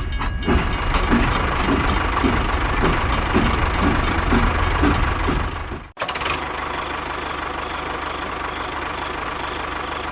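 An engine-like running sound with a low hum and a regular knock about three times a second. About six seconds in it cuts off abruptly and gives way to a steadier running noise.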